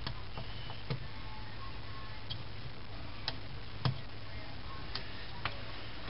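Irregular light clicks and taps, about six, of a plastic pry tool on a BlackBerry PlayBook's small pop connectors as they are unclipped from the mainboard, the strongest near the end, over a steady low hum.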